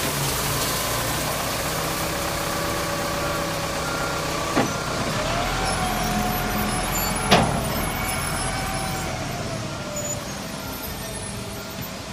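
Caterpillar wheel loader's diesel engine running, with a hydraulic whine that rises and falls as the toe tip bucket is worked. Two sharp knocks come about four and a half and seven seconds in, and the engine grows quieter near the end as the loader drives off.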